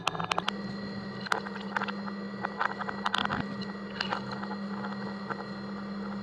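Motor-driven shaking mechanism of a kinetic sculpture humming steadily, its hum stepping up slightly in pitch about half a second in. Small balls click and tap against the metal drum throughout the first four seconds, then the clicks thin out as the balls clear away.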